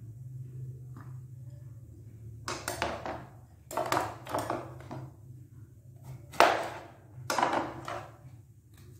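Kitchen knife cutting an apple on a plastic cutting board: four short noisy strokes, the sharpest and loudest about six and a half seconds in. A steady low hum runs underneath.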